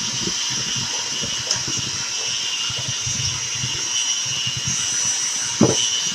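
Electric mixer running steadily, beating strawberry icing with a constant whine and a light clatter of the beaters, with one sharp knock near the end.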